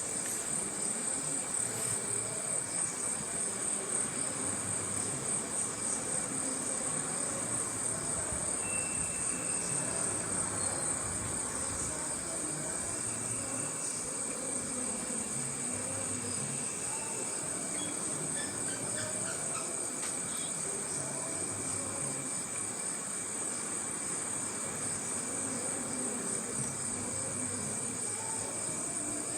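Crickets chirring in a continuous high trill, with a second steady, lower insect tone, over a low, even rush of ocean waves.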